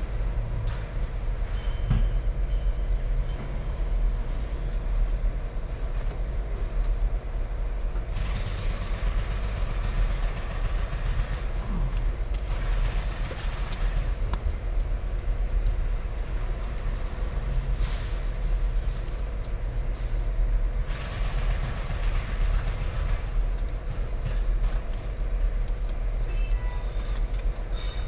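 Vehicle driving, heard from inside the cab: a steady low engine and road rumble, with tyre and wind hiss that swells and fades several times.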